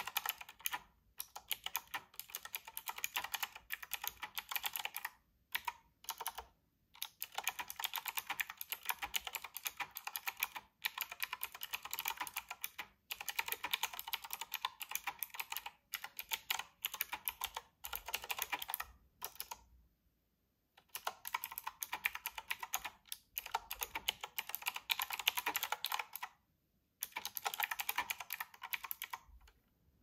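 Fast typing on a typewriter-style mechanical keyboard with round retro keycaps: rapid runs of key clicks and clacks, broken by short pauses, with a longer break about twenty seconds in. The typing stops shortly before the end.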